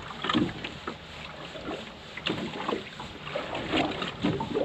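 Wind and water noise aboard a small open boat at sea, with irregular short knocks and rustles of handling.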